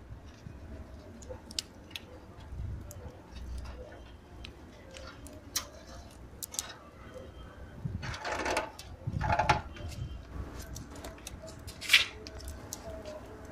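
Scattered sharp clicks and crackles from a burning wood-charcoal fire, mixed with the clatter of metal skewers and a wire grill basket being handled. There are louder scraping rustles about eight and nine seconds in, and a sharp metallic clink near the end.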